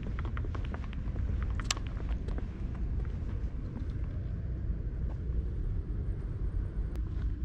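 Footsteps on a concrete walkway, about three a second, for roughly the first two seconds, then they stop. A steady low rumble runs underneath throughout.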